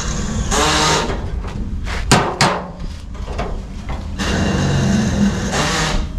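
Sheet-metal bodywork noise: two sharp metallic knocks a little over two seconds in, with stretches of hissing noise before and after.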